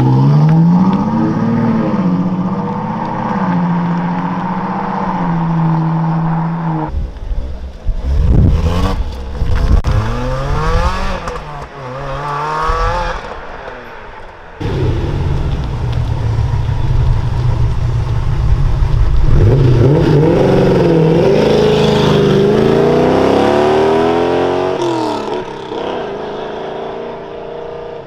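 Three cars in turn driving off under power. First a Ferrari GTC4Lusso's engine runs with a rise in revs as it pulls away. Then a Lotus Exige revs up repeatedly through rising gear changes, the loudest part. Last, a classic Lamborghini Urraco's engine climbs in revs as it accelerates.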